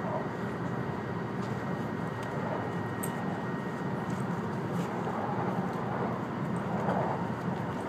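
Steady running noise of an E2 series Shinkansen heard inside the passenger cabin, mostly low in pitch, with a faint steady high tone above it.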